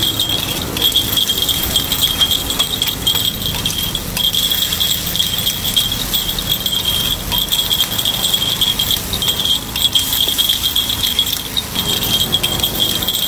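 Metal takoyaki picks clicking and scraping quickly against the metal takoyaki griddle as the balls are turned, in runs broken by short pauses.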